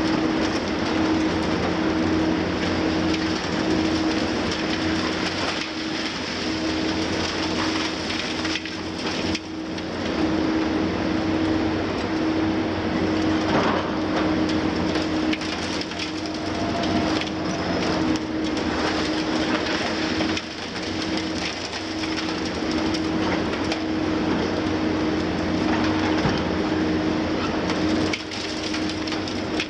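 Long-front demolition excavator's tool crunching and breaking concrete high on a building, with debris crackling and crumbling down, over the steady hum of diesel machinery and hydraulics.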